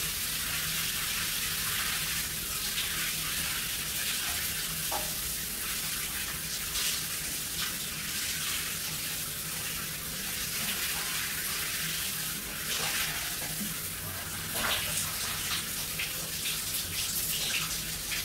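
Shower running: a steady hiss of water spraying onto a person and the tiled floor, with irregular splashes as she moves under the spray, more of them in the second half.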